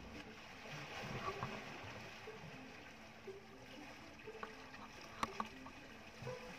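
Faint water sloshing and lapping against a bamboo-outrigger fishing boat at sea, with two sharp knocks a little after five seconds in.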